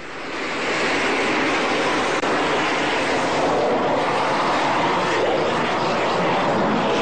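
Jet engine noise from a twin-tailed Sukhoi fighter flying low during an air-show display. It is a steady, dense rushing noise that swells up within the first second and then holds.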